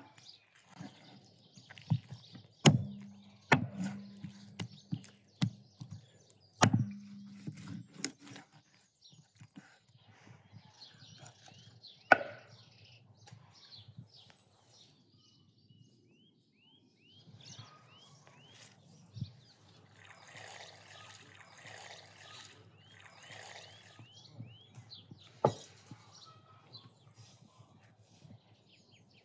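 Knife chopping raw chicken on a wooden cutting board: several sharp chops in the first seven seconds and another about twelve seconds in. Small birds chirp in the background.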